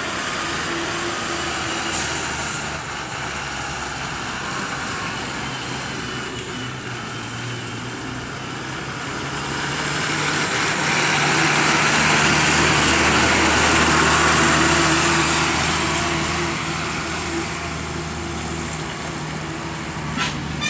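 Diesel engine of a heavily loaded Ashok Leyland lorry running at low speed through a hairpin bend. It grows louder near the middle as the truck comes close, then eases off again.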